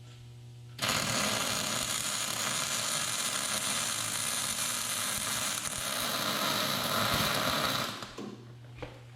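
A power tool running for about seven seconds, starting abruptly about a second in and winding down near the end.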